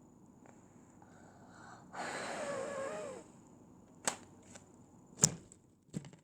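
A child's breathy, wavering sigh or hum lasting about a second, followed by four short, sharp clicks of small objects being handled.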